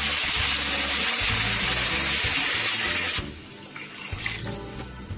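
Vegetable stock poured in a steady stream into a hot pan of stir-fried vegetables, a loud splashing pour that cuts off suddenly about three seconds in. A few light clinks of the ladle against the pan follow.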